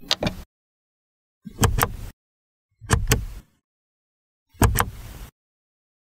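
Four short car door sounds, each a pair of sharp latch clicks with a low thud, separated by silence. The first is lighter, with little thud.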